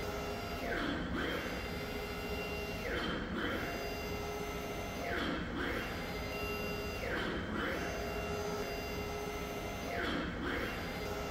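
Wall printing machine running: a steady motor whine as the print carriage travels, broken about every two seconds by a pitch that dips and climbs again as the carriage slows, reverses at the end of its pass, and speeds up.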